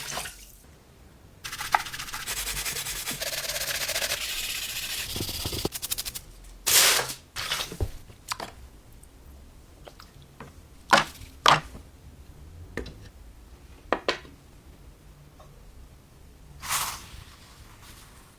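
Hand work on the toy truck's metal parts: about four seconds of steady scraping, then scattered sharp clicks and knocks with a few brief hissing swishes.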